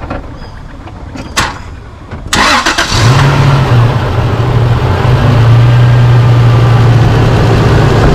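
Holden Rodeo V6 engine started: a few light clicks, then the starter cranks briefly about two seconds in and the engine catches and settles into a steady idle. It runs smoothly with no shaking, its misfire cured by new spark plugs and a new ignition coil.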